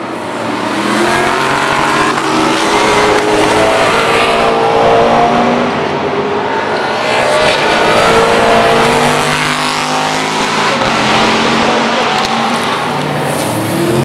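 Several V8 touring race cars running through a chicane, their engine notes overlapping and rising and falling as they brake, change gear and accelerate.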